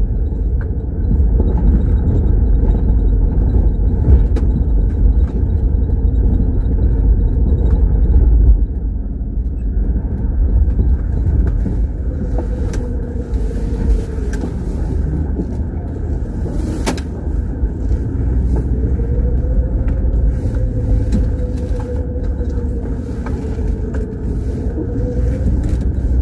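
GAZ Volga car driving, with a loud low rumble of engine and road and scattered sharp knocks from the running gear that the owner cannot place. The rumble drops about a third of the way in, and a wavering hum joins later.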